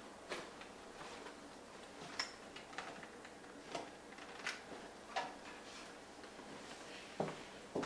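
Cash machine keypad buttons being pressed: a faint series of short, sharp clicks, about one a second, irregularly spaced.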